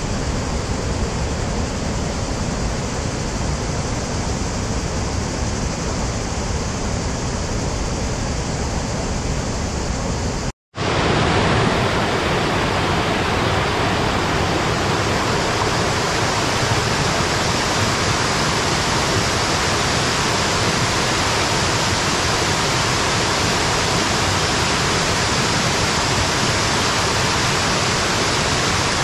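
Steady rush of a waterfall. About ten seconds in it breaks off for an instant, then comes back louder and brighter.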